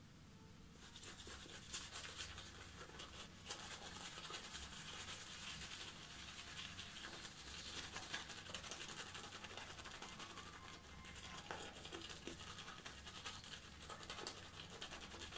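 Boar-bristle shaving brush (Kent VS60) swirling and scrubbing shaving lather over a bearded face and neck: a soft, fast, scratchy wet brushing that starts about a second in and keeps going.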